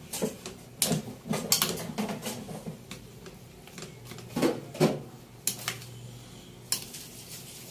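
A metal ladle knocking and scraping against a stainless steel pan while food is stirred: a run of irregular clinks and knocks. The two loudest come close together a little past the middle.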